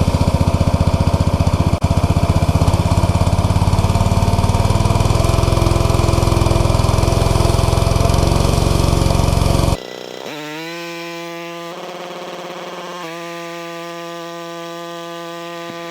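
Small gas engine of a pressure washer running, its pitch stepping up a little about three and five seconds in. It cuts off abruptly about ten seconds in, giving way to quieter steady sustained tones that change every second or so, like background music.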